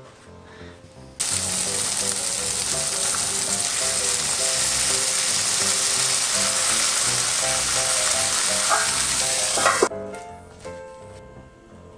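Food sizzling hard in a hot frying pan, starting suddenly about a second in and cutting off near the end, with soft background music under it.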